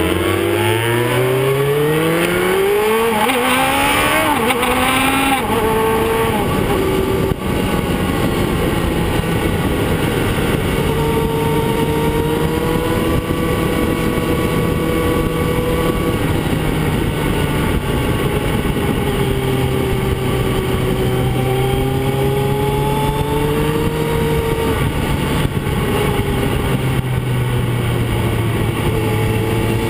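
Motorcycle engine heard from on board, pulling up through its revs in the first few seconds, then cruising at a fairly steady pitch that rises and falls gently, over steady wind and road noise.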